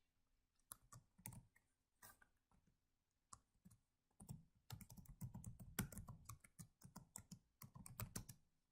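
Faint typing on a computer keyboard while log-in credentials are entered: a few scattered keystrokes, then a steady run of typing from about four seconds in.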